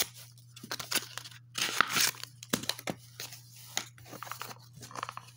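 Hands tearing open cardboard toy packaging: irregular rips, crinkles and clicks, one longer rip about two seconds in, over a steady low hum.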